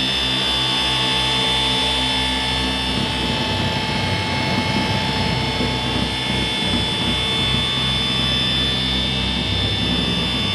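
Milwaukee cordless random-orbital polisher running steadily, its foam pad working polish over painted metal, with a steady motor whine and a low hum from the oscillating pad.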